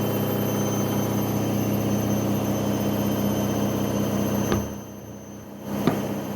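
Washing machine on its spin cycle: a steady motor hum with a high whine over it. About four and a half seconds in there is a click and the sound drops away for about a second, then a second click and it comes back.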